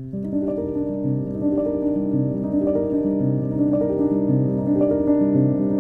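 Background intro music: a steady pattern of held notes, with a new note about twice a second.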